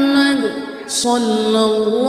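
Vocal music: one voice singing long held notes that slide between pitches, with a brief hiss about a second in.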